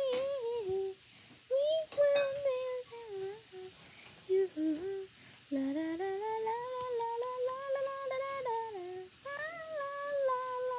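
A girl humming a wordless tune, with long held notes that slide up and down in phrases separated by short breaks; a couple of sharp clicks sound near the start and about two seconds in.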